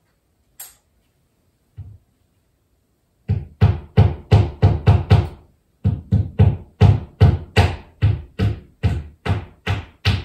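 A fast, even run of sharp knocks, about four a second, starting a few seconds in with a short break partway through.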